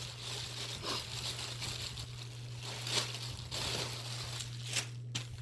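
Rustling and crinkling of plastic packaging as items are picked up and handled, in irregular bursts over a steady low hum.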